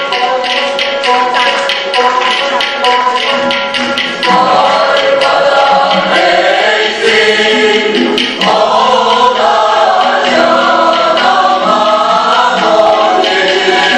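Turkish folk music ensemble: bağlamas (long-necked saz lutes) strummed in a quick, even rhythm, then a choir of men and women comes in singing about four seconds in, with the strumming carrying on underneath.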